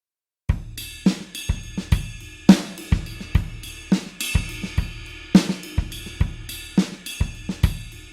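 Rock drum kit playing a steady groove: kick, snare, hi-hat and crash cymbal. It starts about half a second in, after a short silence.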